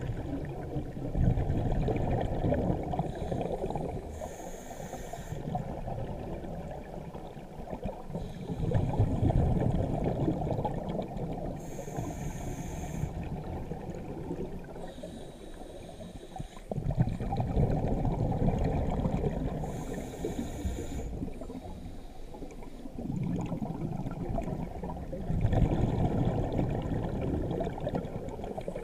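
Scuba diver breathing through a regulator underwater, three breaths: each inhalation is a short hiss, and each exhalation a longer rumbling rush of exhaust bubbles.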